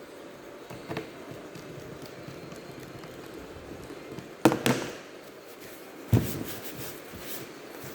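Handling of the HP x360 laptop's parts during disassembly: three sharp knocks and clicks, the loudest about four and a half seconds in, with a few lighter ticks near the end, over steady background noise.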